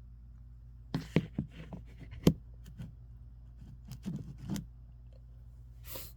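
Scattered light clicks and rustles, two of them sharper knocks, then a short sharp breath in near the end.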